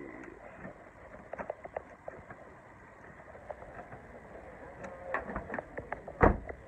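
Rustling and scattered small clicks of a handheld phone and its clip-on earphone microphone being handled, with one loud thump a little after six seconds in.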